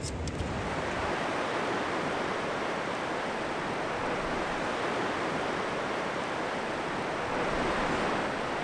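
Ocean surf breaking and washing onto a sandy beach: a steady rush of waves.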